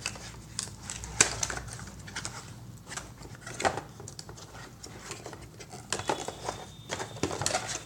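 Packaging being opened and handled to take out a router: irregular clicks, taps and light rustles, with a few sharper knocks about a second in, midway and near the end.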